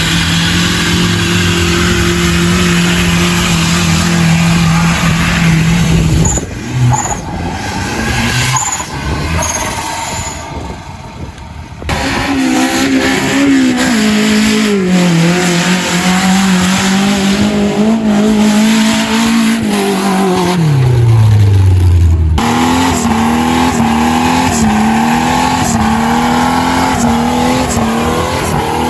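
A vehicle motor running at a steady pitch, then breaking off into a rougher, quieter stretch. It comes back with its pitch wavering, drops sharply as it slows, then rises and falls over and over as it is worked on and off the throttle.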